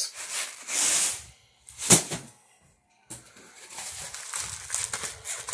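Rustling and handling noise of food packages being moved about close to a phone's microphone, with one sharp knock about two seconds in. A short dead gap follows, then the rustling crackle starts again.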